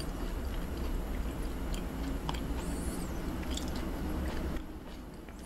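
A person chewing a mouthful of raw Hanwoo beef (yukhoe), close to the microphone, with soft wet smacks and clicks of the mouth. The chewing gets quieter near the end.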